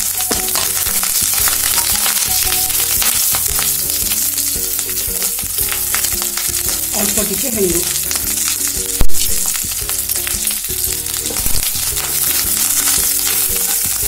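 Curry leaves, dried red chillies and panch phutan five-spice sizzling and spitting in hot oil in a nonstick pan, stirred with a spatula: the tempering for curd brinjal. A single sharp knock about nine seconds in is the loudest moment.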